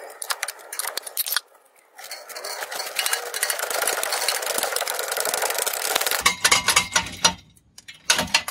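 Socket ratchet clicking on an exhaust flange bolt: a few single clicks, then about four seconds of fast, continuous ratcheting as the loosened nut is spun off, then scattered metal clicks and clinks near the end.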